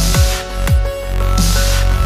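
Electronic dance music soundtrack: a heavy sustained bass with punchy kick drums that drop in pitch, about two a second, and swells of high hissing noise.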